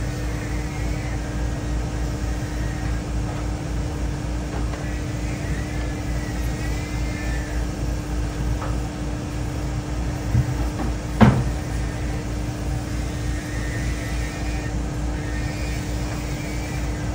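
A steady low mechanical hum and rumble, with one sharp knock about eleven seconds in and a softer one just before it.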